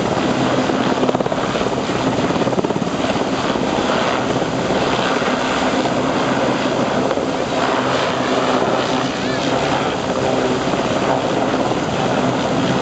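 Westland Sea King search-and-rescue helicopter running on the ground, its turbine engines and spinning main and tail rotors making a steady, loud noise.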